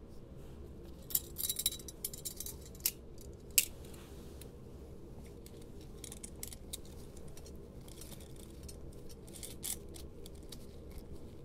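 Sharp metallic clicks and clinks of a stainless-steel speculum being handled and adjusted, with a quick cluster about one to four seconds in and a few more scattered later, over a steady low hum.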